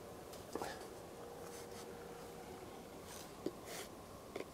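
Faint scraping and light clicks of a Mora 2000 knife slicing through moose sausage and touching the cutting board beneath, a few small clicks spread through.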